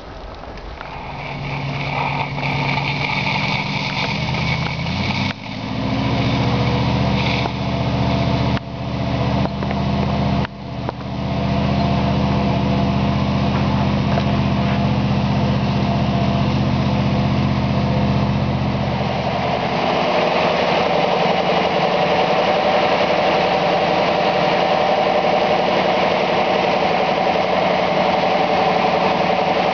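Diesel engine running steadily as a deep, even drone, broken by a few brief dropouts. About two-thirds through it gives way to a different, higher-pitched engine hum, heard inside a diesel locomotive's cab.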